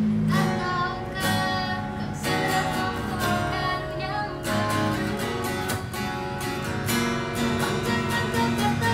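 Cowboy GWC 240 NS jumbo acoustic guitar strummed as a sound check, accompanying a woman singing an Indonesian pop song.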